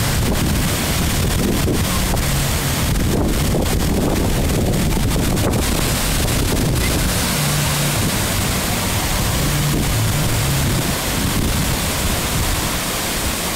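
Rushing water pouring down a log flume's drop chute into the splash pool: a steady, loud rush, with wind buffeting the phone's microphone.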